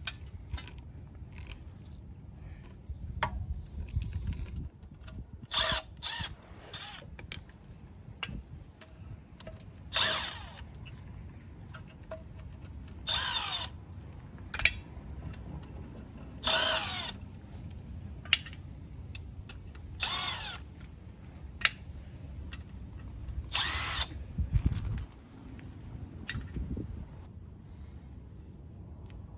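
Cordless impact wrench running in short bursts, about ten times, spinning out the oil pan bolts one after another.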